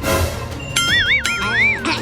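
Background music with a sudden hit at the start, then a cartoon-style warbling sound effect: a whistle-like tone that wobbles up and down several times, starting just under a second in.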